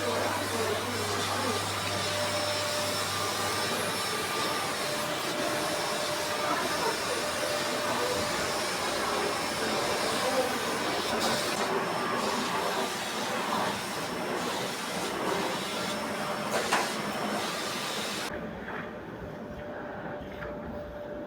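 Vacuum cleaner running steadily with a whooshing hiss and a faint steady whine; the high hiss cuts off abruptly about 18 seconds in.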